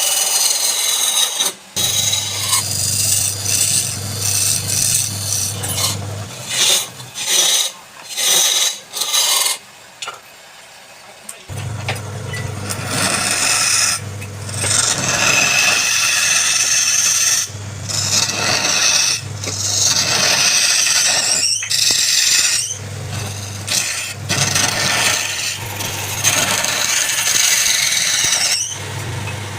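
Wood lathe running, with a turning tool scraping and cutting the spinning wood in uneven passes. The motor hum and the cutting drop out for a few seconds near the middle, then resume.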